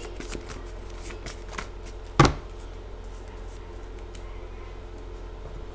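Paper cards being handled on a table: light rustles and small clicks, with one sharp knock about two seconds in, over a steady low hum.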